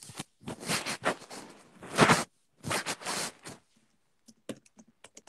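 Rustling and scraping handling noise from a phone being picked up and repositioned, in two long noisy stretches, followed by a few light clicks near the end.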